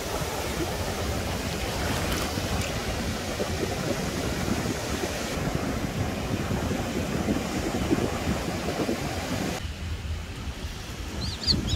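Surf washing up the beach, with wind buffeting the microphone. Near the end the wash drops away and a bird gives a couple of short chirps.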